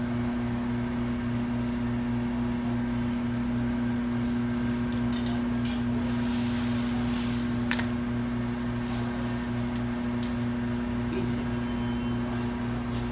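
Steady mechanical hum of an electric motor running, with a few short clicks and knocks around the middle.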